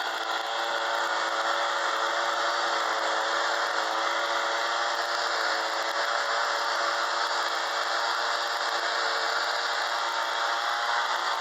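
Engine-driven blower running steadily at full speed, a constant engine hum under a rush of air, blowing mouse-nest debris out of a small mower engine.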